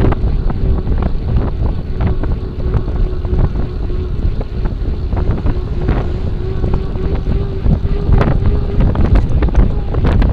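Wind buffeting the microphone of a bicycle-mounted camera while riding, over a steady rumble of tyres on asphalt, with scattered knocks and rattles from bumps in the road. A faint steady hum runs under it and fades about eight seconds in.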